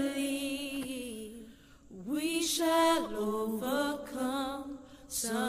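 A solo voice singing unaccompanied: long held notes with vibrato, gliding between pitches, with a short pause for breath just before two seconds in.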